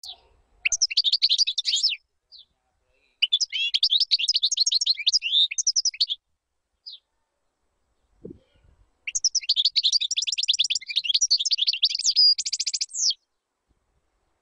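European goldfinch singing: three bouts of rapid, liquid twittering separated by short pauses, with a few single call notes between them. The last bout ends in a fast buzzy rattle.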